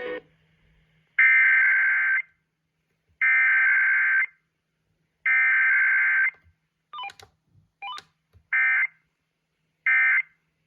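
Emergency Alert System digital header: three one-second bursts of buzzy two-tone data, a second apart. Then come two brief blips and two short bursts of the same data tones, the start of the end-of-message code for a second EAS test.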